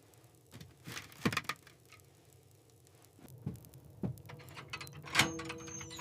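Handling at an iron wood stove being got going: scattered light knocks and clicks, then a sharp metallic clank about five seconds in that rings on briefly.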